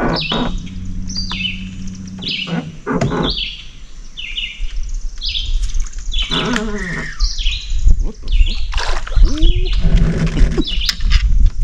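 Songbirds calling: quick series of short, high chirps repeated over and over. About six seconds in comes a lower call whose pitch wavers down and up.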